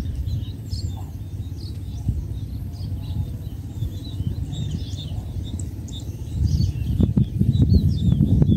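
Small birds chirping over a low, gusty rumble that swells about six and a half seconds in.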